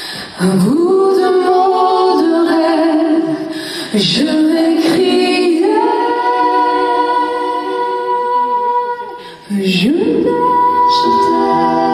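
Women singing a slow ballad live, a lead voice with other female voices joining in. The notes are long and held, and glide up into each phrase, with short breaths between phrases about 4 and 9.5 seconds in.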